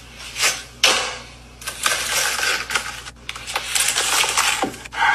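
A knife cutting through a crisp, toasted quesadilla: a run of crunching crackles in irregular bursts.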